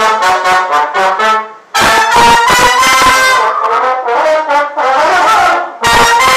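French horn played loudly: a quick run of short notes, a brief pause, then longer held notes and further phrases, broken off once more near the end.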